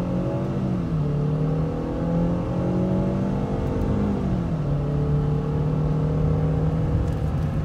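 2018 Ford Fusion SE's engine at full throttle in a 0-to-60 run, heard from inside the cabin. The engine note climbs, drops as the transmission shifts up about a second in, climbs again, drops with a second upshift about four seconds in, then climbs slowly.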